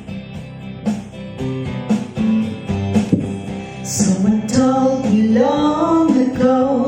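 Song intro on strummed acoustic guitar with a steady low bass line; a bending melodic line comes in about halfway through.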